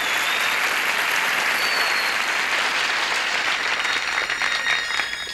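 Audience applauding, the clapping thinning out and becoming more scattered near the end.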